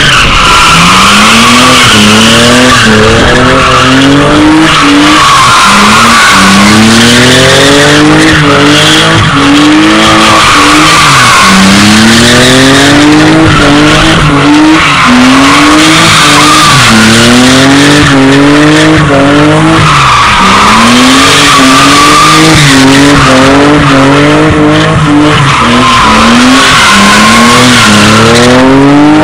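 BMW E36 3 Series spinning its rear tyres in continuous donuts. The engine revs climb and drop back again and again, every second or two, over an unbroken tyre squeal.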